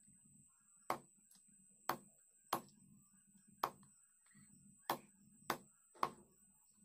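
A large knife chopping raw chicken on a thick wooden chopping block: seven sharp chops at uneven spacing, about one every second or less.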